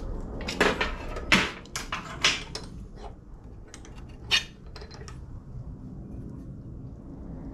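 Steel angle bar and a hacksaw clanking and knocking against a cast-iron bench vise as the cut piece is handled and taken out: a handful of sharp metal knocks in the first half, the loudest about a second and a half in, then quieter handling.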